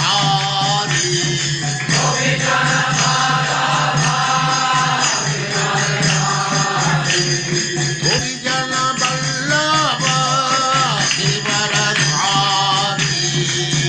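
Devotional chant sung to music, the voice gliding between held notes over a steady low drone, with jingling hand percussion.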